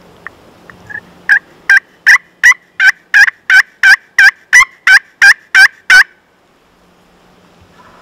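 A turkey call worked in a run of about thirteen loud hen yelps, evenly spaced at nearly three a second, after a few faint clicks; the yelps stop abruptly about six seconds in.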